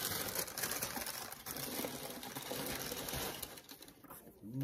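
Shoebox tissue paper crinkling and rustling steadily as it is pulled and handled.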